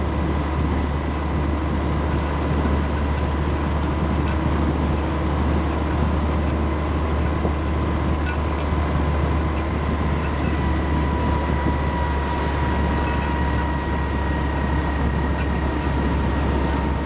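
Engine and drivetrain of a WW2-era military vehicle running steadily, heard from inside the vehicle as it drives. There is a deep, constant rumble with a steady high whine over it, and the whine dips slightly in pitch about two-thirds of the way through.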